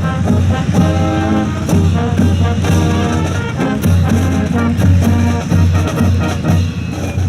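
Brass-led swing-style music with a steady beat.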